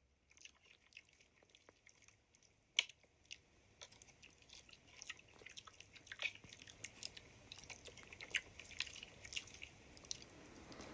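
Close-miked ASMR mouth sounds: soft, wet clicks and smacks of lips and tongue, sparse at first with one sharper click, then coming more often.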